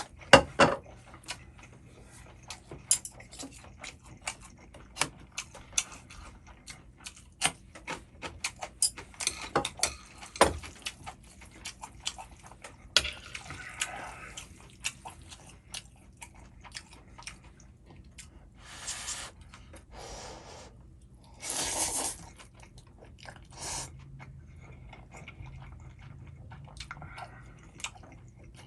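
Eating Chapagetti instant black-bean noodles: many sharp clicks of utensils on the bowl, with chewing and a few short slurps of noodles.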